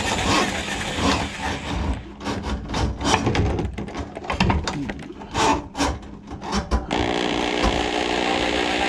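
Handheld electric drum drain auger running, cable spinning in a kitchen sink drain clogged with grease. About two seconds in, the steady run gives way to a few seconds of irregular short scraping and rattling bursts, and near the end the motor runs steadily again.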